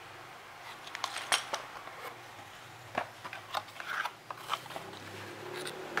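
A clear plastic bag of spare keyboard keycaps being handled: irregular sharp crinkles of the plastic and light clicks of the keycaps knocking together inside.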